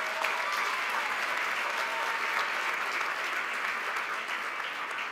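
Large audience applauding steadily, with a faint voice or two in the crowd in the first couple of seconds; the clapping starts to die down near the end.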